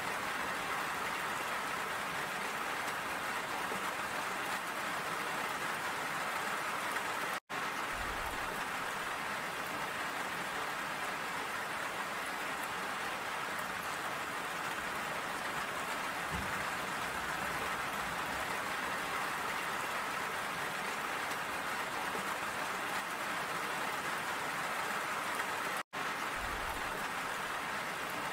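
Steady rain falling, an even hiss with no change in strength, that cuts out for an instant twice.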